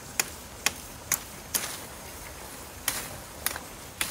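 Chopping strokes cutting a bent wooden branch to make the bow for a bow drill: sharp knocks, four about half a second apart, a pause, then three more.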